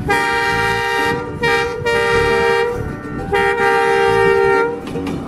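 Horn blasts, four of them with short gaps, each a chord of several steady notes sounding together, the chord shifting a little from blast to blast.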